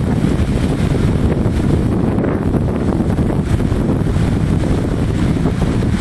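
Wind buffeting the microphone: a loud, steady rumbling noise with no breaks.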